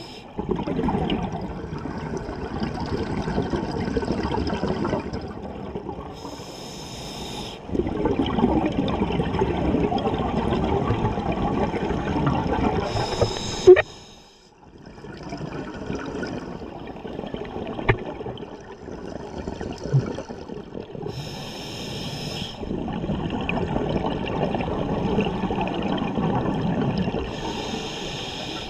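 Scuba diver breathing through a regulator underwater: a short hiss of inhalation four times, each followed by several seconds of bubbling exhalation. About halfway through, a sharp click is followed by a brief quiet.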